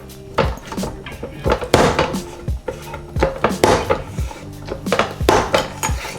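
Background music over repeated sharp clinks and taps of glass mosaic tile pieces being handled on a manual tile cutter.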